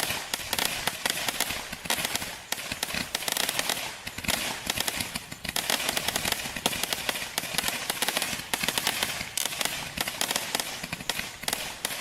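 Benstar 'War Games' firework going off: a dense, rapid run of small bangs and crackle, easing in short lulls about every three seconds.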